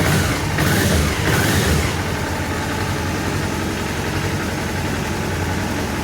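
Honda CB500 engine idling, a little louder over the first two seconds and then steady. The clutch basket runs quiet, without rattle, its loose damper springs shimmed with pads.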